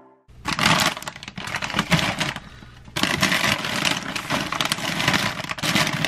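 Crinkly plastic snack and bread bags crackling and rustling as they are handled and packed, with a brief lull near the middle.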